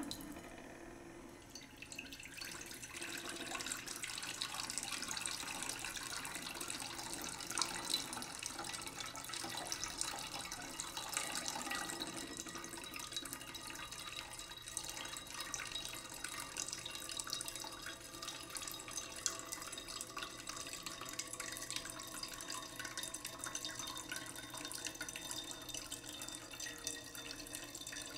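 Water trickling steadily, with many small drips and splashes.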